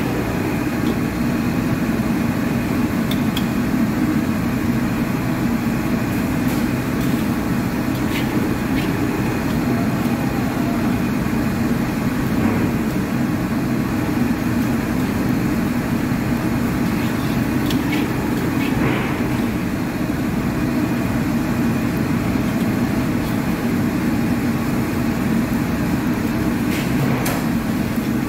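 Steady rushing noise of a commercial gas wok burner running at full flame, with a few light clicks of the metal spatula against the carbon-steel wok as the vermicelli is stir-fried.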